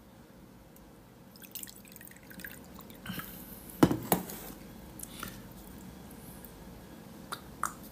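A few scattered soft clicks and ticks over quiet room tone, the loudest two close together about four seconds in and two smaller ones near the end.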